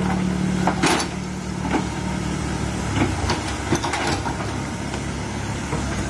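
Komatsu PC130 hydraulic excavator's diesel engine running steadily while digging, its note easing about a second in, with scattered sharp knocks and clicks.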